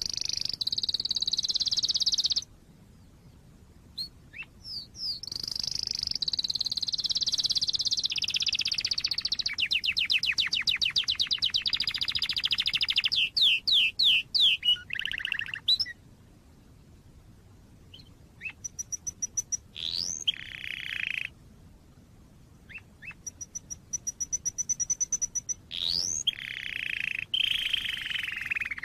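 Canary singing: long rolling trills and quick strings of high repeated notes, the phrases separated by pauses of about two seconds.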